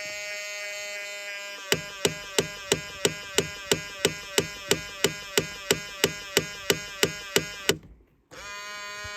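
2000 Ford Explorer power side mirror motor running with a steady whirring hum. After about two seconds a sharp click joins it about three times a second. Near the end the sound cuts out briefly, then the hum starts again.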